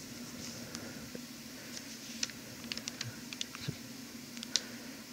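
A dozen or so faint, irregular clicks and taps over a steady low hum.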